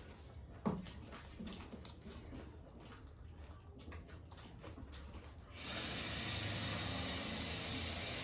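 Close-up chewing of crunchy jhal muri, puffed rice and fried snacks crackling in the mouth in short irregular crunches. About five and a half seconds in, a steady hiss starts suddenly and runs on.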